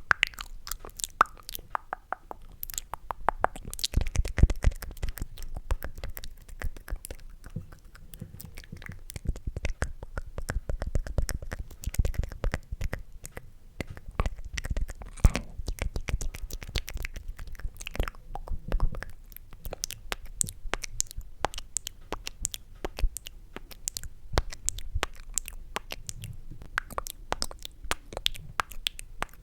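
ASMR mouth sounds close to the microphone: a dense, irregular run of sticky, wet clicks and smacks.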